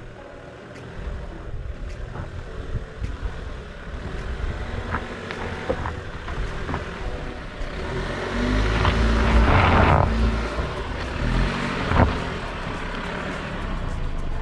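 Toyota RAV4 driving over a rough dirt trail: a steady low engine and tyre rumble with scattered short knocks and clatters. A louder rushing surge comes about nine to ten seconds in, and a sharp thump follows about two seconds later.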